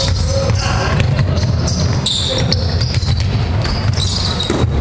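Basketball game sounds in a sports hall: the ball bouncing on the court and sneakers squeaking in short, high-pitched chirps, with the odd shout from players.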